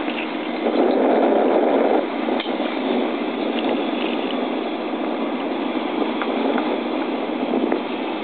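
Steady rushing wind noise on the microphone of a camera carried aloft on a parasail.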